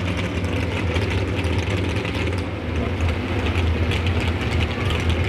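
Modified 4x4 pulling truck's engine idling steadily with a deep, even rumble, not yet revved for the pull.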